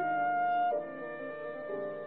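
Classical chamber music led by a violin: a bright held note for the first moment, then a run of sustained notes over lower accompanying lines.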